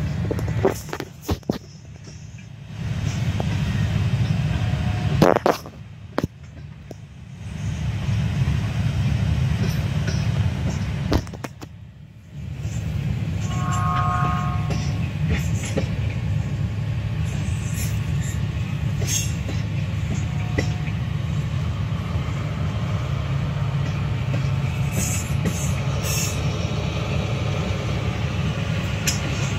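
Freight train of tank cars rolling slowly past at a grade crossing: a steady low rumble of wheels on rail, broken by a few short dips and occasional sharp clanks. About halfway through there is a brief high ringing tone.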